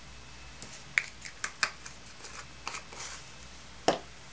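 Fingers pressing and rubbing embossing powder into a paper flower on card stock: light paper rustles and small scattered clicks, with one sharper tap near the end.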